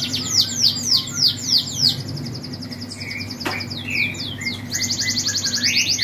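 Canary-type finch singing: a run of about six quick downward-sweeping whistles, a few scattered short notes, then a fast even trill near the end.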